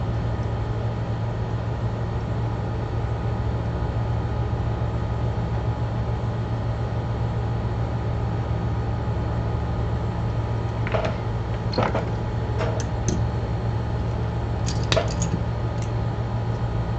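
Steady low machine hum, with a few light clicks and taps in the second half.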